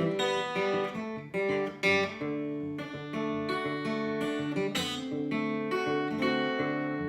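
Acoustic guitar strummed in a steady rhythm, chords changing every half second or so: an instrumental break with no singing.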